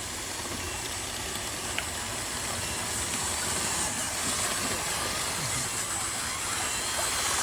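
Small electric motors of radio-controlled model vehicles running: a steady hiss with a faint, thin high whine.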